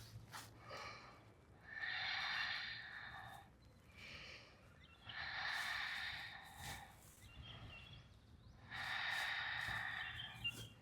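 A person breathing audibly and slowly while holding a yoga pose: three long, drawn breaths a few seconds apart, with softer breaths between them.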